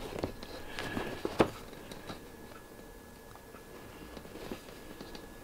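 Pleated RV window blind being handled as nylon string is threaded through the holes in its pleats: light crinkling and clicks, with a few sharper taps in the first second and a half and the loudest, a single sharp tap, about a second and a half in, then quieter handling.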